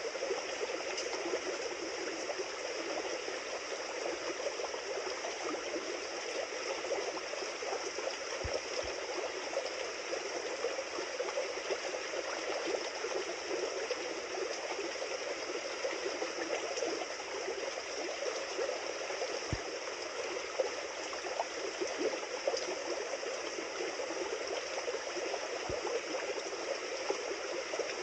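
A river flowing steadily, with continuous rushing water and a few faint low thuds.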